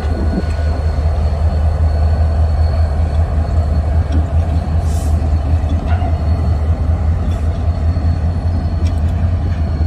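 Pair of Union Pacific diesel-electric locomotives running, a steady low engine rumble.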